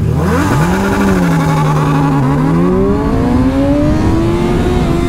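Kawasaki sport bike's inline-four engine accelerating hard: the revs climb quickly in the first second, hold, dip briefly just after two seconds, then rise steadily again.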